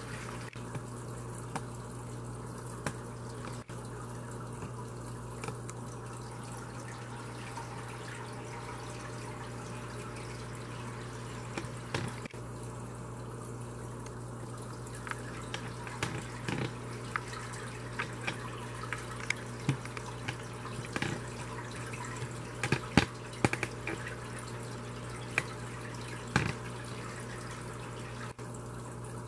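Aquarium sponge filter bubbling: air bubbles break the water surface in short, irregular pops and drips over a steady low hum. The pops come more often in the second half.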